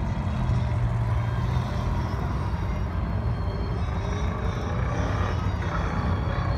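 Classic muscle car's engine running low and steady as the car drives slowly away.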